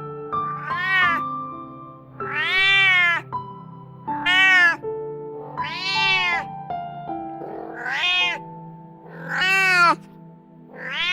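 A domestic cat meowing repeatedly: seven separate meows about a second and a half apart, each rising and then falling in pitch, over soft background music with held notes.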